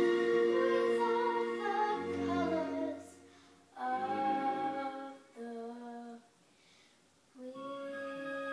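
Young girl singing a slow ballad in held notes. The phrases break off into two short silences, and a steady held chord of backing music comes in near the end.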